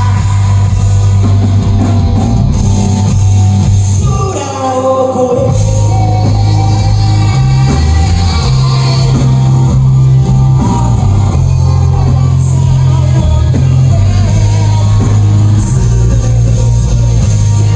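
Live heavy rock band playing loud and steady, with distorted guitars, bass, drums and sung vocals, as heard from the audience. The band drops out briefly about four seconds in and then comes back in full.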